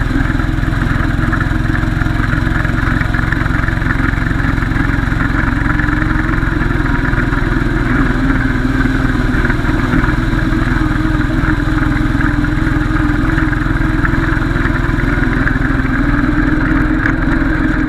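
Yamaha Grizzly 550 ATV's single-cylinder four-stroke engine running steadily, its pitch drifting slightly up and down.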